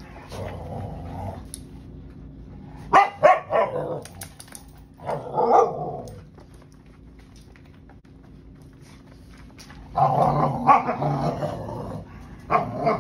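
Dogs play-fighting: miniature schnauzers and an English springer spaniel growling, with sharp barks about three seconds in, another outburst around five seconds, and a longer spell of growling and barking from about ten seconds in.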